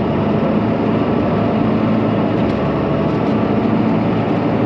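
John Deere 4755 tractor's six-cylinder turbo diesel running steadily under load while pulling a sprayer, heard close from outside the cab with a steady rushing noise over the engine note.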